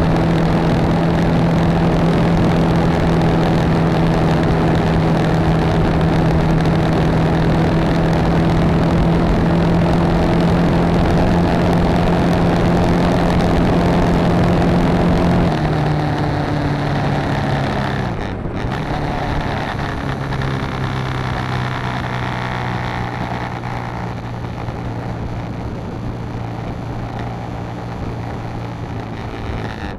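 BMW G650GS single-cylinder engine running steadily at highway cruising speed, with wind rush. About halfway through, the engine note drops lower and quieter as the bike eases off, and a short dropout follows a few seconds later.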